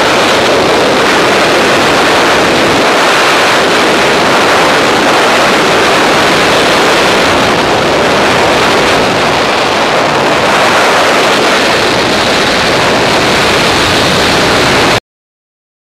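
Steady roar of freefall wind rushing over the microphone during a skydive, cutting off suddenly near the end.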